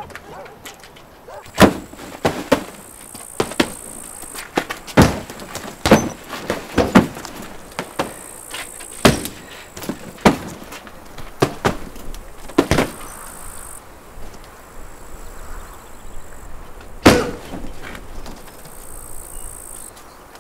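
A series of sharp, irregular knocks and thuds, about a dozen, some very loud, with a high hiss that switches on and off a few times.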